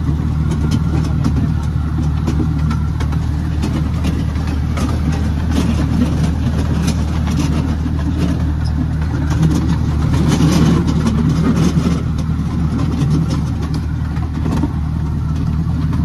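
A vehicle engine running steadily, a low hum with light rattling clicks throughout.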